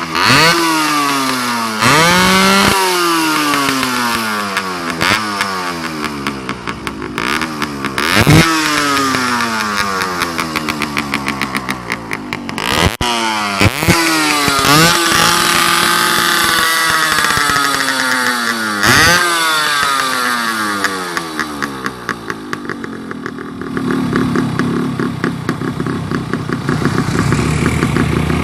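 Yamaha RX-King's two-stroke single-cylinder engine revved in repeated sharp blips, each rev dying slowly away, then running lower and uneven near the end. It runs rough with a ragged, uneven firing, which the owner calls coughing: the engine is not running healthily.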